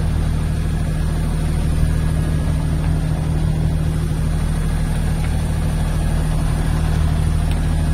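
A sailing yacht's engine running steadily, a low, even drone with no change in speed, while the boat motors through a calm with its sails hanging slack.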